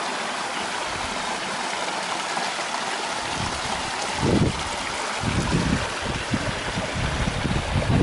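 Small shallow stream running and trickling over rocks in a steady rush. From about halfway through, irregular low rumbling bursts come in under the water sound.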